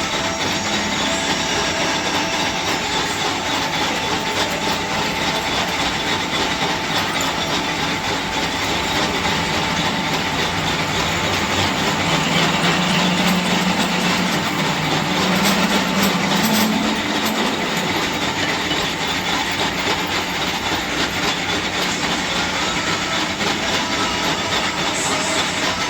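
A workshop machine tool running steadily: a continuous rattling mechanical noise with a steady high whine, and a deeper hum that swells from about twelve to seventeen seconds in.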